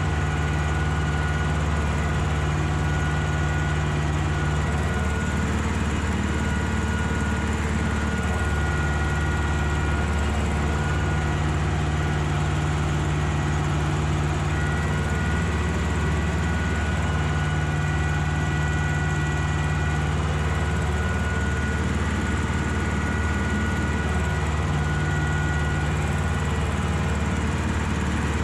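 Ursus tractor engine running steadily while pulling tillage gear across a field. A steady high whine sits over the engine note, and the engine note shifts slightly every few seconds.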